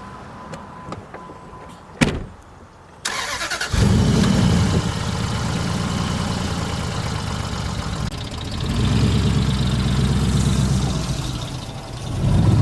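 Car engine starting and running after a sharp click, swelling up twice as it is revved.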